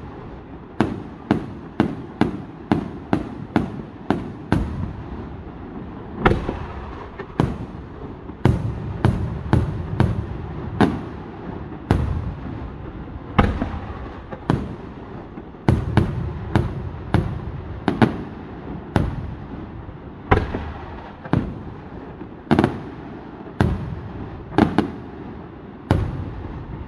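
Aerial firework shells from a Vaccalluzzo Fireworks display bursting in rapid succession, a string of sharp bangs roughly one to two a second, each followed by a short echoing tail.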